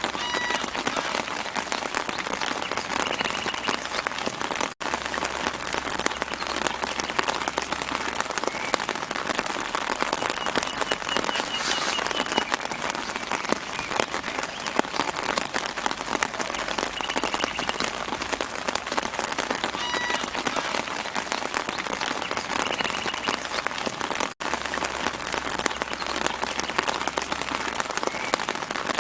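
Steady light rain pattering on leaves, a dense hiss of fine drops, with a few faint short bird chirps here and there. The sound cuts out for an instant twice.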